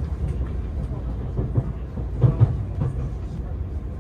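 Running noise inside a JR Central HC85 series hybrid train on the move: a steady low rumble, with the wheels knocking over rail joints, two knocks loudest about two and a half seconds in.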